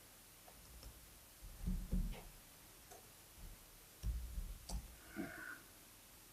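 Faint clicks and dull knocks from typing on a laptop keyboard and clicking, coming in two short clusters, one about a second and a half in and another around four to five seconds in.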